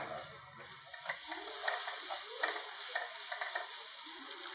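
Diced potato, carrot, green beans and onion frying in oil in a non-stick pan with a steady sizzle, while a spatula stirs and scrapes them in short strokes, roughly two a second.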